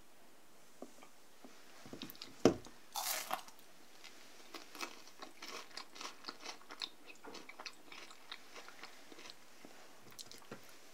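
Ferrero Rocher's nut-studded wafer and chocolate shell crunching as it is cracked open. There is one sharp crack about two and a half seconds in, a burst of crunching just after, then a run of small crackles from the broken chocolate-and-wafer pieces.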